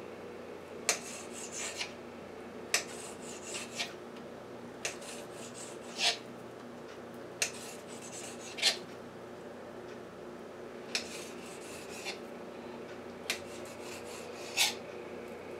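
Kitchen knife slicing raw chicken breast into strips, the blade scraping and tapping against the cutting surface in about a dozen short strokes, roughly one a second, some in quick pairs.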